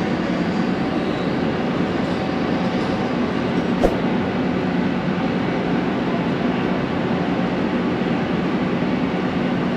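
Diesel engine of a large Amazon riverboat running steadily, a low even rumble, with one sharp click about four seconds in.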